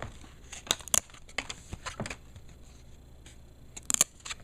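Trading card packs and cards being handled: a wrapper crinkling and cards being handled, in a few short, crisp crackles, with a quick cluster near the end.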